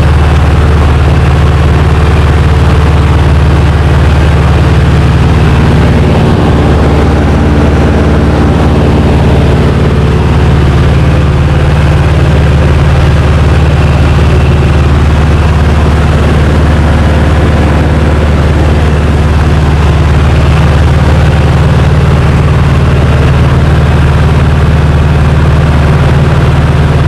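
Small single-engine light airplane's piston engine and propeller running steadily in flight, heard inside the cabin as a loud, constant low drone.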